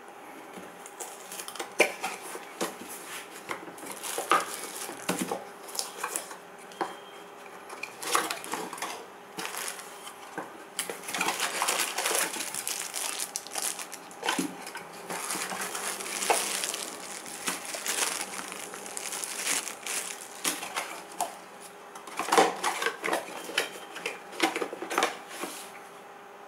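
Hands opening a cardboard phone box and taking out its contents: cardboard flaps and tray scraping and tapping, and plastic wrapping rustling, with scattered clicks and knocks throughout.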